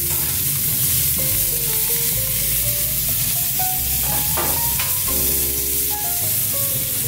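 Burger patties sizzling steadily on a gas grill's grates, with background music and a bass line.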